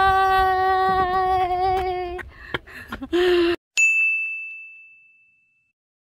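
A woman's voice holds a long sung-out note for about two seconds, with a short sung syllable a second later. About four seconds in comes a single bright notification-bell ding from a subscribe-button end card, which rings out and fades away over about two seconds.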